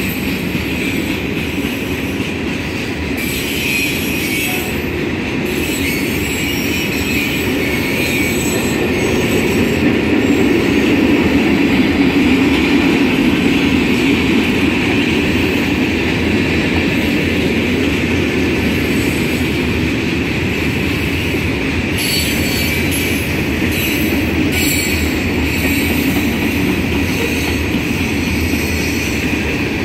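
Freight cars of a long Union Pacific manifest train rolling past at a steady speed: a continuous rumble of wheels on the rails with a steady high squeal from the wheels over it, swelling a little about a third of the way through.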